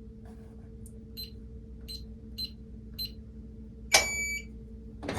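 Digital keypad of a VEVOR gun safe beeping as a code is entered: four short, high beeps, one per key press, then a longer, lower beep about four seconds in. It ends on a loud thunk.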